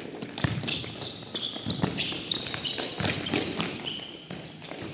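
Futsal balls being kicked and bouncing on an indoor court floor: a run of irregular sharp knocks.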